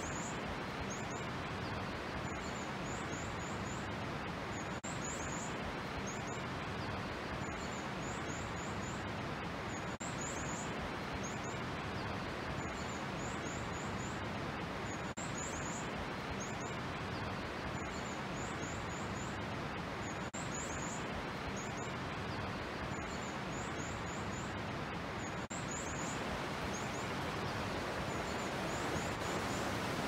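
A small songbird repeats a short, high-pitched phrase about every two to three seconds over a steady rushing background, which grows a little louder near the end.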